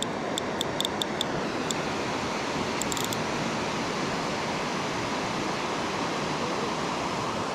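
Steady rush of river water over low riffles and weirs. A quick run of sharp clicks from a fly reel comes in the first two seconds, with a short burst of clicks about three seconds in, while a hooked trout is being played on the line.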